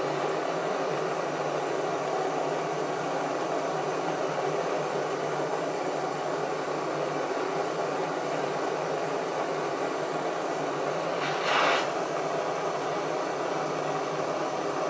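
Jeweller's soldering torch hissing steadily as its flame heats the inside of a ring to draw the solder through the joint. The hiss rises briefly, for under a second, about three-quarters of the way through.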